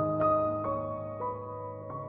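Slow, calm piano music: single melody notes struck about every half second over held low notes.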